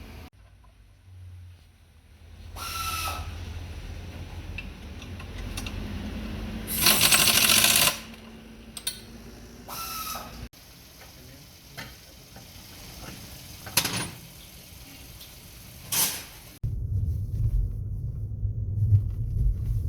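Car repair work in several short cuts: metal tools clinking and tapping, with a loud hiss-like burst lasting about a second near the middle. Near the end a car's low running rumble takes over.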